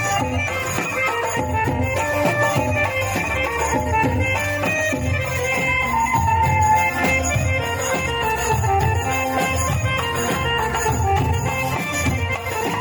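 Band playing instrumental music at a sound check: a melodic line over a steady, busy percussion beat.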